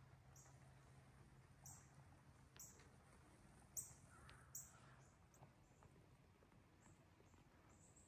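Near silence: faint outdoor ambience with a scatter of short, high chirps, about one a second, the loudest nearly four seconds in.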